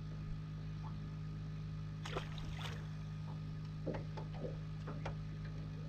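Handling noise aboard a small fishing boat: a steady low hum throughout, with a few light knocks and a brief splash-like rush about two seconds in.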